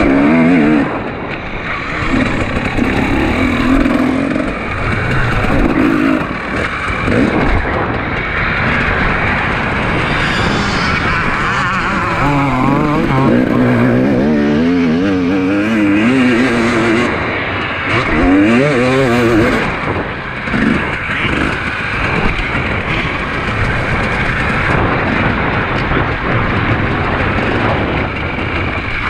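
KTM 250 EXC Six Days single-cylinder two-stroke engine revving hard on the throttle off-road as heard from on the bike, its pitch swinging rapidly up and down as the rider blips and opens the throttle, with a steady rush of wind and tyre noise underneath.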